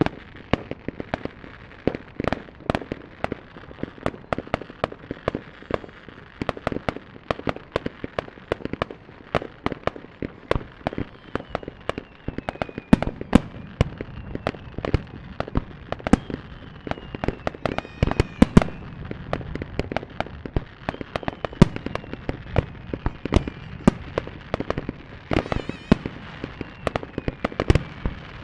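Aerial firework shells bursting in rapid succession, a dense barrage of sharp bangs and cracks several times a second, with a few faint falling whistles threaded through.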